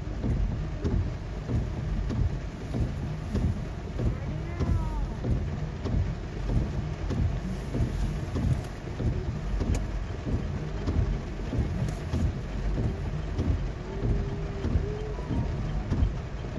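Heavy rain drumming on a car's roof and windshield, heard from inside the cabin as a dense, steady patter over a low rumble.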